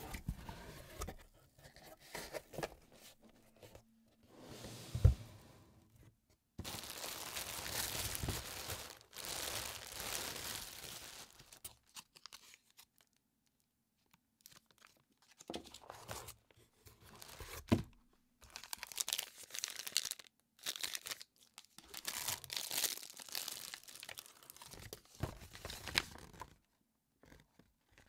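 Plastic snack wrappers and packaging crinkling, rustling and tearing as the items are handled out of a cardboard box. A sharp knock about five seconds in is the loudest sound, with a short quiet pause later on.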